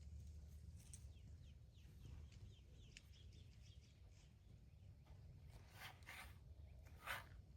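Faint outdoor ambience of birds chirping, many short falling chirps over a steady low rumble. About two-thirds of the way in, a dog barks a few times, the loudest bark near the end.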